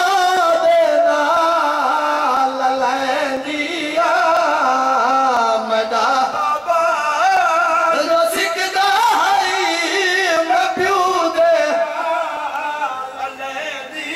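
A man's amplified voice chanting a mournful masaib lament, in long wavering held notes that glide slowly up and down.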